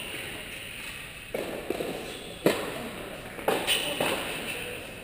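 Tennis ball being struck by rackets and bouncing on an indoor court: sharp knocks about a second apart, the loudest about halfway through, echoing in the large hall.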